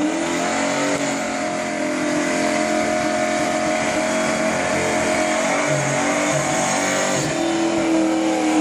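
A motor vehicle engine running steadily under way, its pitch drifting slowly up and down, over a constant hiss of road and wind noise.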